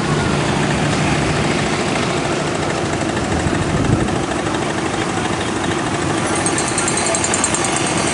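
Steady engine and road noise of a moving vehicle, picked up from on board as it drives along.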